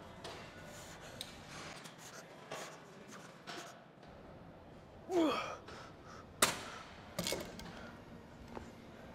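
A short gasp about five seconds in, then a single sharp knock, with a few fainter knocks scattered around it over steady background noise.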